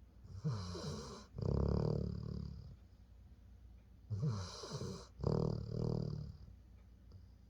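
Senior Labrador snoring in its sleep: two rounds of snoring breaths about four seconds apart, each a pair of breaths, with quiet between them.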